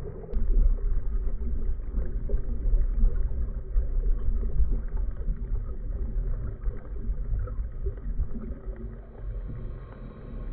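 Underwater ambience heard through a camera's waterproof housing: a muffled, low rumble of surge and water movement that rises and falls, with a few faint clicks.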